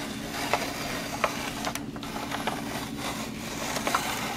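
Hand-cranked Paderno three-blade spiralizer turning, its plastic crank and gearing rattling with scattered light clicks as the blade cuts a peeled cucumber into spiral noodles.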